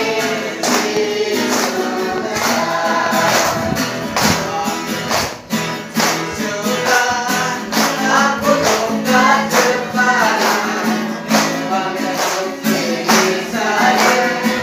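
A church congregation singing a hymn together, accompanied by an acoustic guitar and a tambourine keeping a steady beat.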